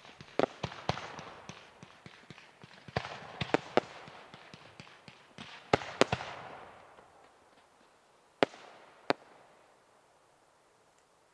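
Aerial fireworks bursting: a quick run of sharp bangs over a fizzing crackle that dies away after about six seconds, then two lone bangs and the sound fades out.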